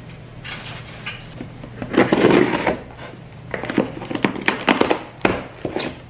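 Rummaging in a kitchen drawer for scissors, with a clattering stretch about two seconds in. Then comes a run of sharp clicks and scrapes as scissors are handled and cut into the packing tape of a cardboard box.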